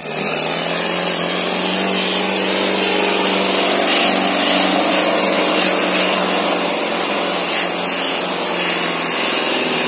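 Sonalika 750 tractor's diesel engine running flat out under heavy load, a loud steady drone, as it drags harrows with its rear wheels spinning in loose sand.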